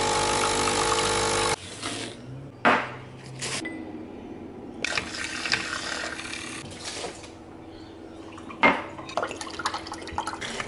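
Capsule coffee machine's pump running with a steady hum as coffee pours into a ceramic mug, cutting off about a second and a half in. It is followed by a few clinks of glassware and a stretch of liquid being poured into a glass.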